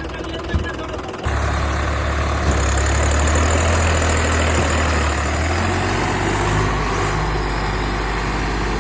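Engine running steadily, jumping louder a little over a second in and dropping to a lower hum at about five and a half seconds.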